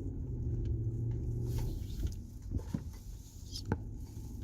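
Nissan Patrol Y62 driving with a steady low hum that eases about two seconds in, leaving a low rumble and a few light clicks and knocks. Its rear hub bearing is newly replaced, and the bearing's humming noise is gone.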